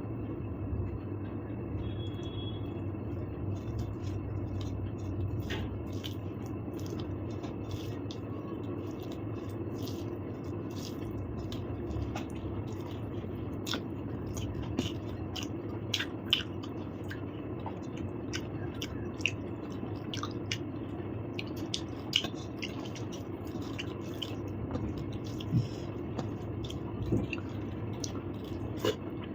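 Eating sounds: wet squishing of food and chewing, with scattered small clicks and taps, over a steady low hum.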